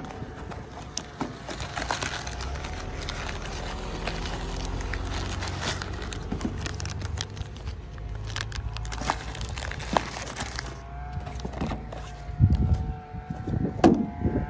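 Crinkling of a clear plastic bag and cardboard parts boxes being handled, with small knocks and taps as they are set down on a car's painted metal panel. A steady hum comes in near the end.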